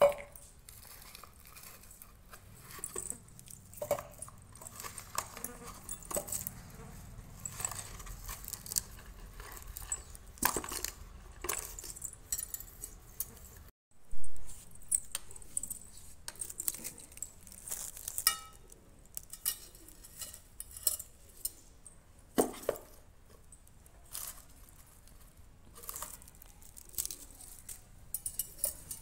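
Onions knocking and clinking against a small steel bowl and a cardboard box as they are handled, in scattered, irregular taps. About halfway through, the sound briefly cuts out and a short loud burst follows.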